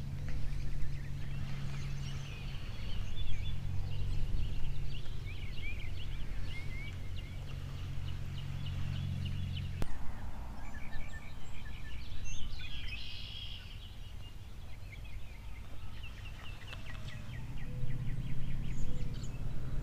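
Songbirds chirping over a steady low hum. About halfway through the hum cuts off after a sharp click, and it comes back near the end.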